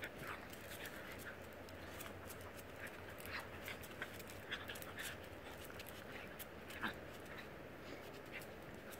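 Two small dogs play-wrestling: faint scuffling and irregular clicks of claws on concrete, with short, faint dog noises mixed in.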